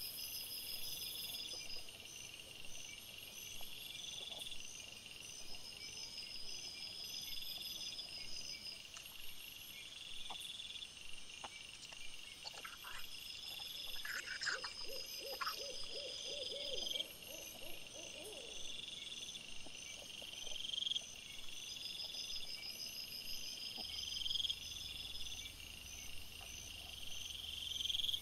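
Crickets chirping in a regular repeating pattern, with a short run of about ten quick low pulses in the middle.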